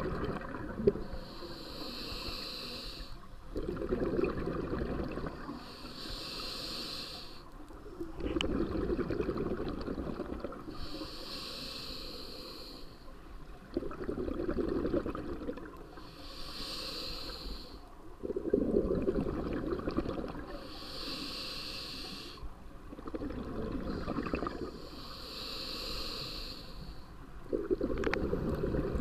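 Scuba diver breathing through a regulator underwater. A hissing inhale alternates with a low bubbling rush of exhaled bubbles, about one breath every four to five seconds. A single sharp click comes about a second in.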